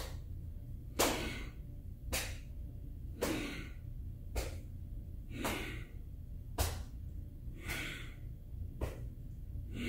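A woman's forceful exhales through the mouth, short puffs about once a second in a steady rhythm, paced to a twisting, arm-swinging qigong movement.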